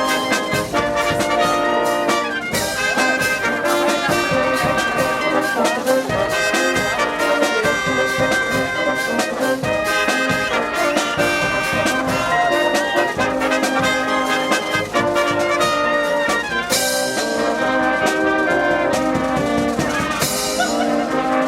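Brass band playing, trumpets and trombones sounding sustained chords and moving melodic lines, with two bright crashes near the end.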